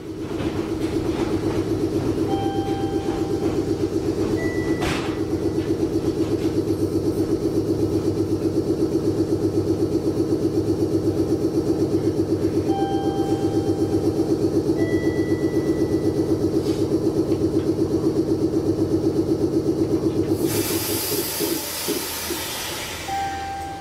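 Meitetsu 6800 series electric train running, a steady rapidly pulsing hum. About twenty seconds in the hum fades and a hiss of air sounds for two or three seconds.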